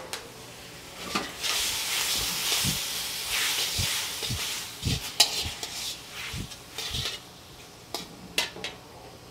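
Thinly sliced beef sizzling in hot oil in a steel wok as it is stirred and turned with tongs. The sizzle swells over the first few seconds and then fades, with the tongs scraping and clinking against the pan, most sharply about five seconds in and twice near the end.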